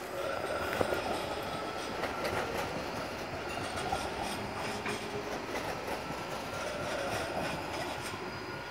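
Tram running on its rails, wheels clicking irregularly over the track, with a thin steady high tone over the running noise; it comes in suddenly at the start.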